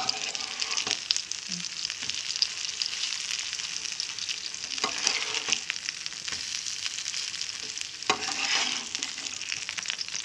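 Masala-coated Indian mackerel frying in coconut oil in a nonstick pan: a steady sizzle with fine crackle. A spatula scrapes the pan a few times, about a second in, near the middle and around eight seconds, as the fish are turned over once one side has fried.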